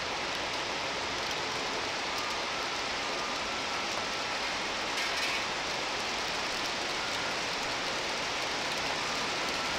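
Heavy rain falling in a cloudburst, a steady hiss of rain on surfaces, with a few faint short high-pitched tones now and then.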